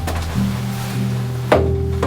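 Soft background music with held bass notes, and a single knock about one and a half seconds in.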